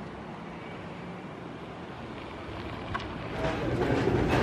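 Steady outdoor background noise with wind on the microphone. About three seconds in it gives way to louder, busier indoor restaurant room noise.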